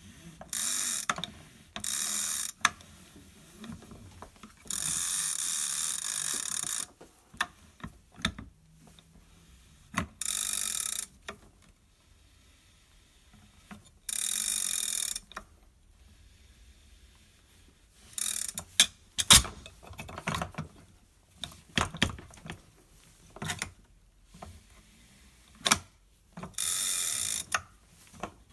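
Red rope hauled through a Petzl Maestro descender-pulley in a series of pulls lasting one to two seconds each, the rope rasping and the sheave whirring as it runs. In the second half there are many sharp clicks and knocks from the metal device.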